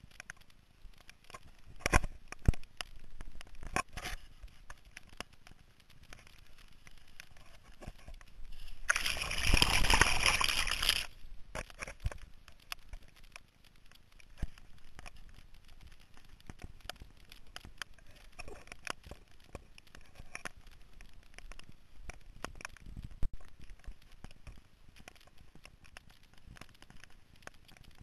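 Carveboard wheels rolling over a wet, flooded road, with scattered clicks and knocks. About a third of the way in comes one loud splashing rush, about two seconds long.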